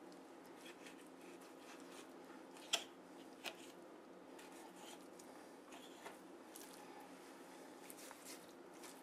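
Quiet handling of a raw turkey being boned out by hand: soft wet squishing of skin and meat worked off the carcass, with a few sharp clicks, the loudest two about three seconds in, over a low steady hum.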